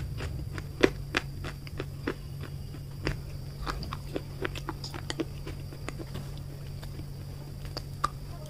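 A person chewing baked clay close to a lapel microphone: irregular small crunches and clicks, with a sharper crunch near the end as she bites into a grey clay block.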